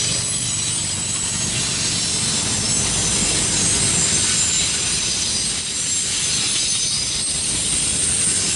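Loaded autorack freight cars rolling past close by: a steady rumble of steel wheels on the rails.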